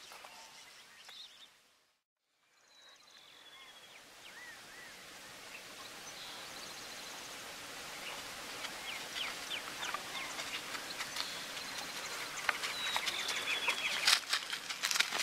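Outdoor ambience: a steady hiss with small birds chirping, broken by a moment of silence about two seconds in. Toward the end, a run of sharp clicks and knocks grows louder.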